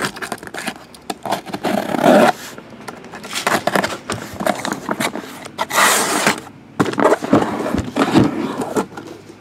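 Scraping and rustling of things being handled on a tabletop, in irregular bursts with scattered sharp clicks.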